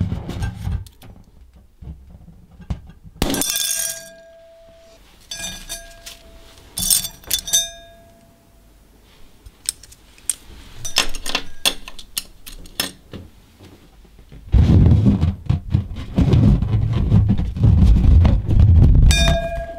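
Hard objects knocking against a cut-glass bowl: several sharp clinks, each leaving a short glassy ring. Near the end comes a longer stretch of rubbing and handling noise as a latex balloon is held against the bowl.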